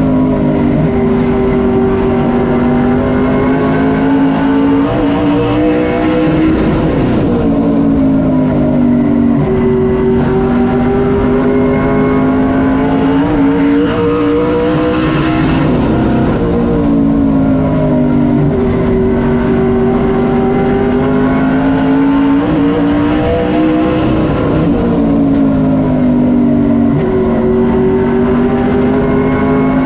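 A Sportsman late model's V8 race engine, heard from inside the car at racing speed. The pitch holds, drops and climbs again in a repeating cycle every eight or nine seconds.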